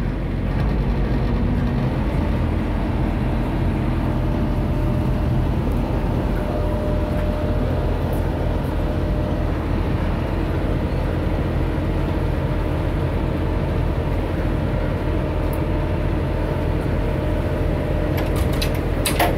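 Friendship water taxi's engine running with a steady low drone as the boat moves alongside the dock. Near the end there are a few sharp knocks.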